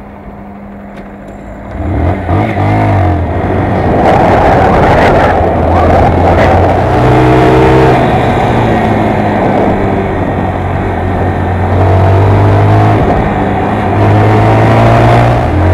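Honda CBR125's small single-cylinder four-stroke engine, heard from the rider's camera, pulling through the gears with wind and road noise. It is quieter for the first couple of seconds, then louder, its note climbing and dropping back at each of several gear changes.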